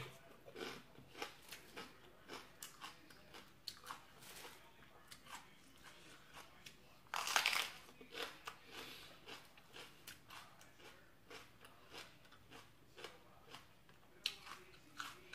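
A person chewing and crunching crisp raw vegetables, such as long beans, close to the microphone: a steady run of small crunches, with a louder crunchy bite about seven seconds in and another near the end.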